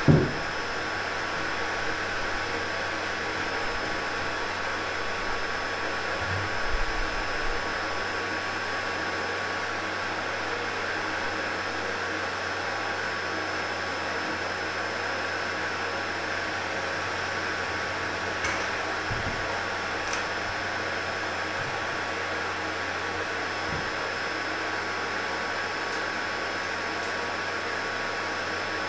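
Electric power centrifuge spinning crude sunflower oil to separate out the seed meal and fibre: a steady whirring hum with a constant whine above it. A thump comes right at the start and a few dull knocks about six to seven seconds in.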